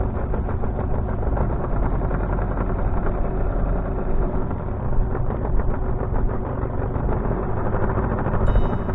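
Yamaha 9.9 outboard motor running steadily. Music comes in near the end.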